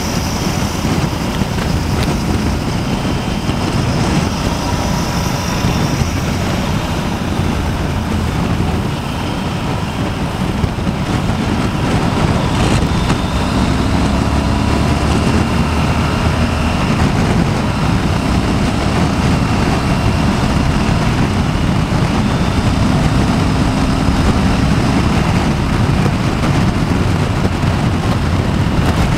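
Motorcycle cruising on the open road: steady wind rush and rumble over the microphone, with the engine's hum underneath drifting slightly up and down in pitch as the speed changes.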